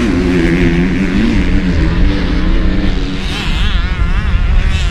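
Motocross bike engines running hard, pitch rising and falling with the throttle. From about three seconds in, a higher-pitched engine warbles quickly up and down, over a heavy low rumble.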